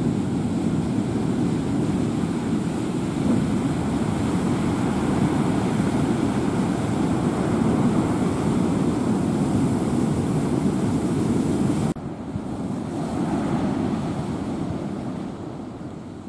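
Storm wind and surf during a typhoon, a loud steady rush with wind blowing on the microphone. The level drops abruptly about twelve seconds in and then fades.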